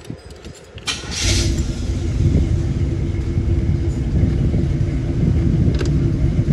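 Box Chevy's engine starting about a second in with a short burst of noise, then idling with a steady low rumble.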